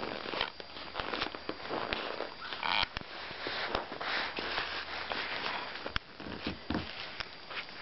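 Black Pomeranian puppy giving one short whine about three seconds in, among irregular rustling and scuffing noises close to the microphone.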